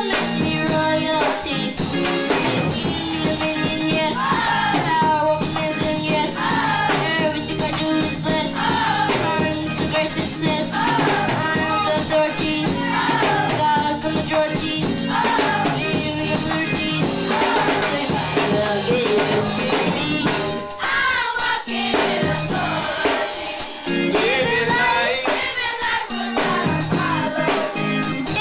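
Gospel youth choir singing, led by a child soloist on a microphone, with drums accompanying.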